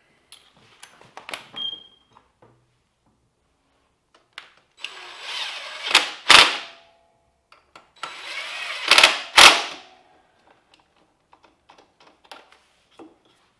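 Cordless impact driver running in two bursts of about two seconds each, driving in bolts. Each burst builds up and ends in a couple of sharp, loud hits as the bolt is run down tight.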